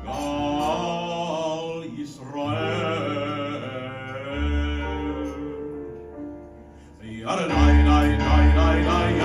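A man singing a Jewish liturgical melody, backed by instruments with sustained notes and a low bass line. The music thins out past the middle, then swells louder about seven seconds in.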